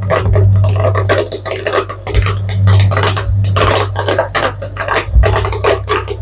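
Background music with a dense, fast rhythm over a steady low drone.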